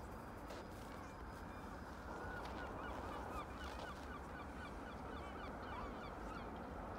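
A large flock of waterbirds flying over the sea, many birds calling at once in short, rising and falling calls that grow thicker about two seconds in, over a steady low rumble.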